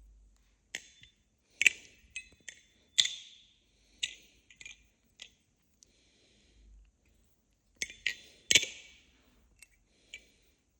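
Nabalis Vulp balisong trainer, Teflon version, being flipped: its handles snap open and shut with sharp metallic clacks that ring briefly. The clacks come in irregular clusters, loudest near the start and again near the end.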